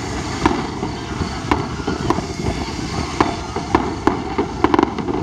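Aerial fireworks bursting in the sky: sharp bangs at irregular intervals, ending with a rapid run of four cracks about a second before the end, over steady background noise.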